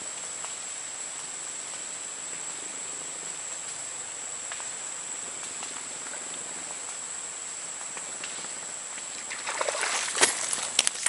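Steady outdoor hiss with a constant high-pitched whine; about nine and a half seconds in, a burst of splashing, rustling and sharp clicks as a small snakehead is hauled in on a casting rod to the bank.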